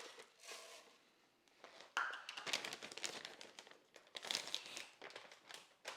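Crinkling and rustling of a bag of rolled oats being handled as a cup of oats is measured out, in irregular spells with short pauses, the busiest about 2 seconds in and again near the end.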